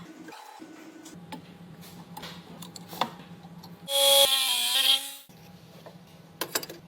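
A machine's motor hums steadily. About four seconds in comes a loud burst of about a second and a half of metal grinding, with a ringing tone that dips slightly.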